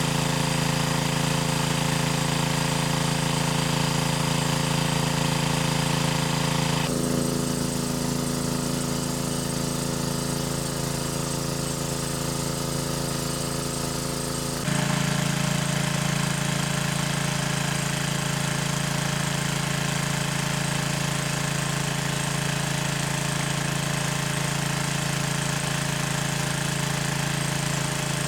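A small engine running steadily with a low, even hum. The tone and loudness change abruptly about seven seconds in and again about fifteen seconds in.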